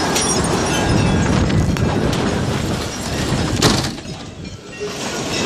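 Tornado wind blowing hard around a mobile home, a dense, steady rumbling rush like a passing freight train. A single sharp crack, like something breaking, comes about three and a half seconds in, and the noise drops for about a second before building back.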